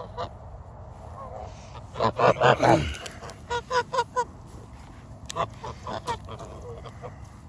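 Domestic geese honking: a loud burst of overlapping honks about two seconds in, then two runs of shorter honks, about four each.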